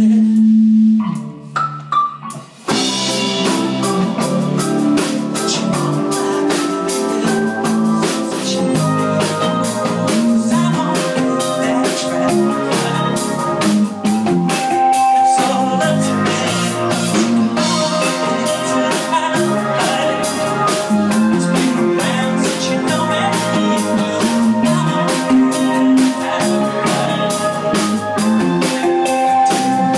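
Live indie-pop band playing: a held note and a few sparse notes, then about three seconds in the drums, bass guitar, electric guitar and keyboards come in together and play on with a steady beat.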